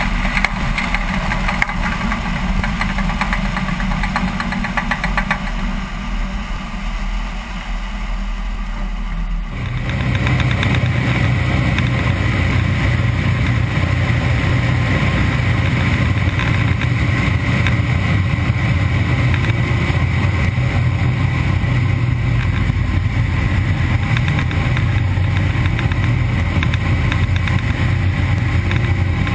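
Pratt & Whitney R-985 radial engine of a DHC-2 Beaver floatplane running at power, heard first from outside over a rushing noise. About a third of the way in it switches abruptly to a louder, steadier engine drone heard inside the cockpit.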